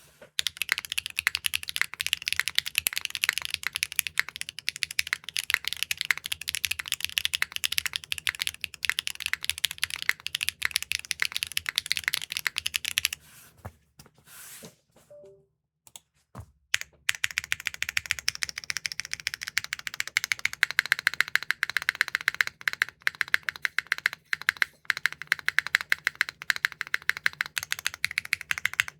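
Fast typing on a copper Neo65 Core Plus mechanical keyboard with factory-lubed HMX T-Rex linear switches (POM stem, PC top housing, PA66 bottom), a dense run of keystroke clacks. The typing pauses for about three seconds around the middle, then resumes.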